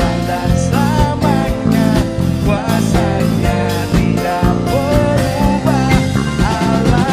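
Live worship band playing an Indonesian praise song: electronic keyboard, bass and drums with a steady beat, and a singer's voice carrying the melody.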